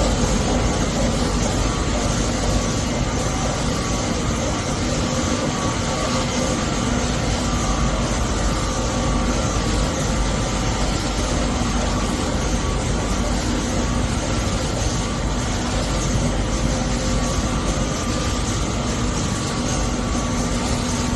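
Small-roll double-line wet wipe production machine running: a steady mechanical noise with a few steady hum tones, unchanging throughout.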